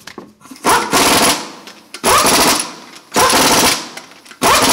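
Impact wrench hammering in four short bursts, about a second apart, as it drives in the wheel lug bolts one after another.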